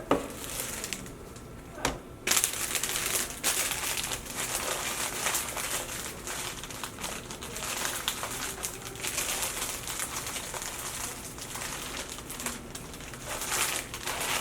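Plastic packaging film being gathered up and crumpled by hand, a near-continuous crinkling. There is a sharp tap at the start and another about two seconds in.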